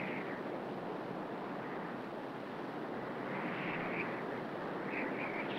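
Soft, even rushing noise like wind or distant surf, swelling and easing slowly, with no drone motor heard.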